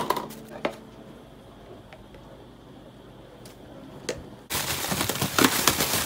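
Plastic bag crinkling loudly as it is shaken to coat microwaved potato pieces in potato starch, starting about four and a half seconds in. A few light knocks come before it.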